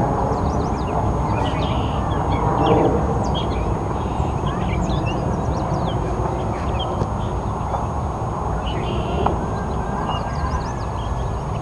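Birds calling with short, scattered chirps over a steady low outdoor rumble.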